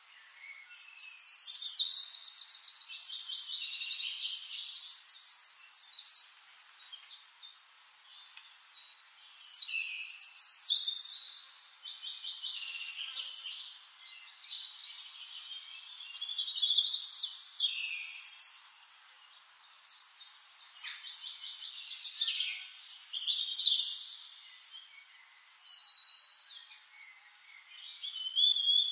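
Birdsong: a small bird's phrases of rapid trills and chirps, each a couple of seconds long, repeating about every six seconds.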